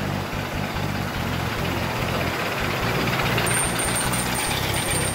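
American Flyer model trains running on the layout's track: a steady rattling rumble of wheels and motors. A thin, high, steady tone comes in about three and a half seconds in.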